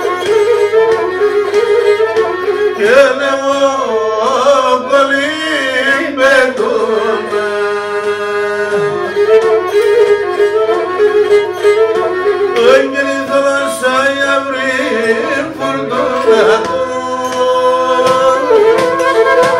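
Pontic lyra (kemenche) bowed, playing a Pontic folk tune with ornamented melody over steady held drone notes, with a man's voice singing along at times.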